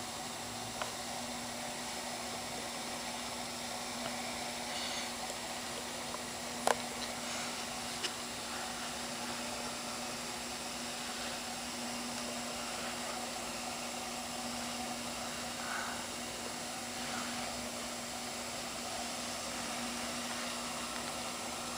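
Steady hum and hiss of a miniature reef aquarium's running equipment, its pumps and circulating water. Two short clicks stand out, about seven and eight seconds in.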